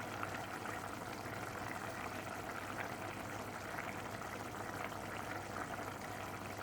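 Chicken masala gravy simmering in a pan, a steady bubbling as the thick sauce cooks down.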